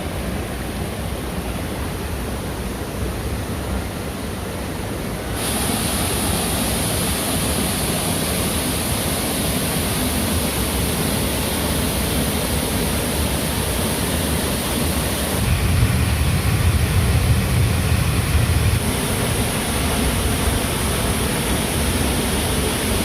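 Steady rushing of a waterfall or fast river, a loud even hiss with a low rumble. It turns suddenly louder and brighter about five seconds in, and a deeper rumble swells for a few seconds past the middle.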